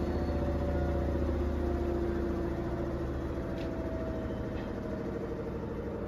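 Front-loading washing machine's drum motor winding down after a spin: a steady hum with a whine that slowly falls in pitch as the level eases off.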